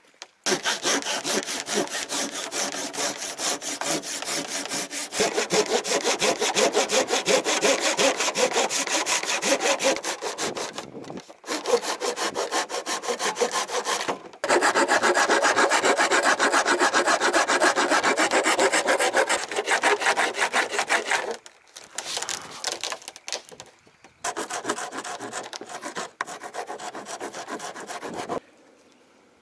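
Hand saw cutting through thin plywood in fast, continuous strokes, stopping briefly a few times. Near the end the strokes turn lighter: a file rasping the freshly cut plywood edge.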